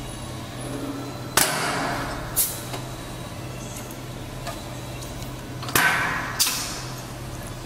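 Pneumatic cream and liquid filling machine running two fill cycles: each starts with a sharp burst of compressed-air hiss that fades over about a second, followed by a click about a second later. A steady low hum runs underneath.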